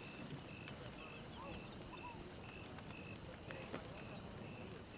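Faint night ambience of crickets: a chirp repeating evenly about twice a second over a steady, higher insect hiss, with a few faint ticks.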